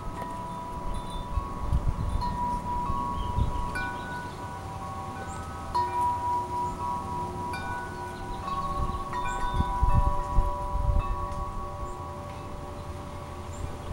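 Wind chimes ringing, many tones struck at different moments and overlapping as they ring on, with low rumbles from wind on the microphone now and then.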